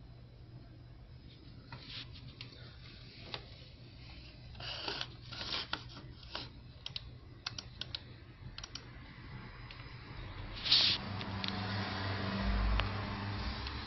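Irregular light clicks and taps, several in a row, then a louder sharp knock a little before the end followed by a few seconds of rustling noise.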